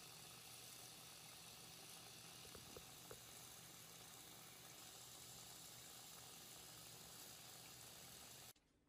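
Faint, steady hiss of a thin stream of tap water running from a faucet into a bathroom sink. It cuts off abruptly near the end.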